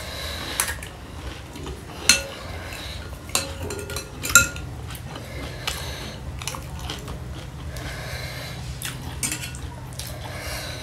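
Metal spoon and fork clinking and scraping against a ceramic bowl in scattered separate taps, some with a brief ring, as the spiced water for panipuri is stirred and puris are dipped in it.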